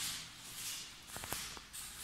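Footsteps scuffing across a tiled floor, about two a second, with a few light clicks a little over a second in.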